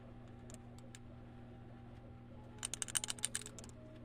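Printed PLA ball rattling inside its printed cage as the part is turned: a few faint clicks, then a quick run of light plastic clicks a little past halfway, over a faint steady hum.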